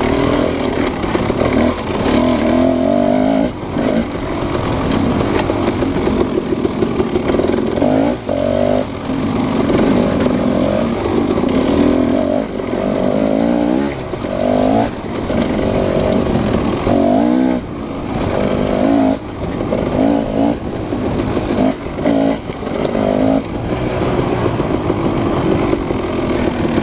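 Husqvarna 300 two-stroke dirt bike engine running under load, revving up and down with the throttle and dropping away briefly again and again as the rider rolls off.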